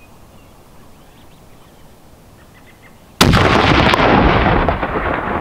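A single rifle shot from a Nosler Mountain Carbon rifle in 27 Nosler, fired about three seconds in to check the rifle's zero, followed by a long rumbling echo that fades slowly.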